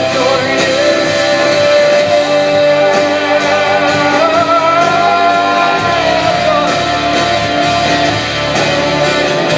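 Praise and worship band playing live: a singer holds long, wavering notes over electric guitar, with cymbal strikes keeping time.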